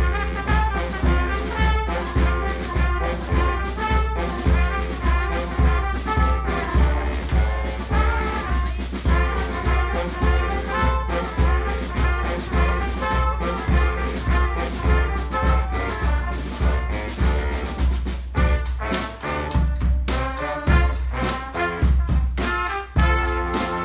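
Brass band playing: trombones and trumpets carry the tune over a steady bass drum beat. The bass drum drops out for a moment about three-quarters of the way through, then comes back in.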